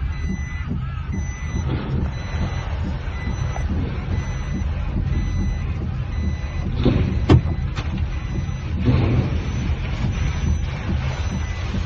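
An electronic warning beep, like a vehicle's reversing alarm, repeating about every half second over a steady low rumble. A sharp crack comes about seven seconds in, with a second, weaker one just after.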